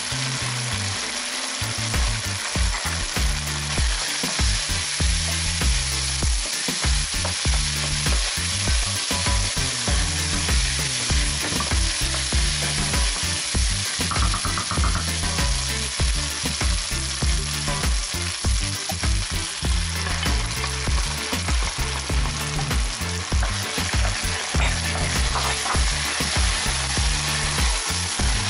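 Rice, peas and diced bell pepper sizzling in a hot frying pan while being stirred with a wooden spoon, with a low thumping underneath.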